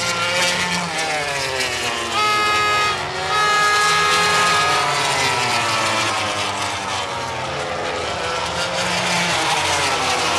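MotoGP racing motorcycles at speed, with 800cc four-stroke engines screaming at high revs. Their pitch rises and falls through gear changes as the bikes pass, and from about two seconds in one high note holds steady for a few seconds.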